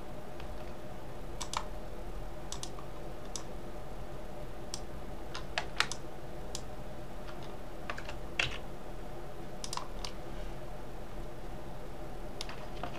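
Scattered single clicks of computer keyboard keys and mouse buttons, about one a second, over a steady faint hum.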